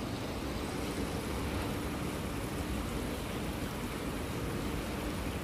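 Steady rushing of water from a tiered indoor fountain, with a faint steady hum underneath.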